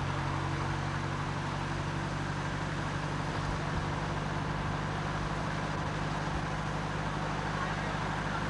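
A steady low mechanical hum at a constant pitch, like a motor or engine running evenly, with a hiss over it.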